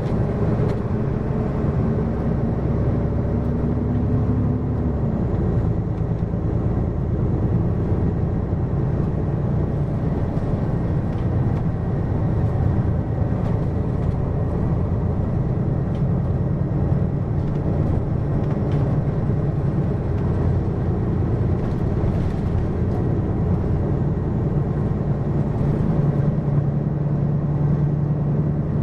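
Hino QKG-LV234N3 city bus's diesel engine under way. The engine note climbs for the first few seconds, drops about five seconds in, then the bus runs on steadily.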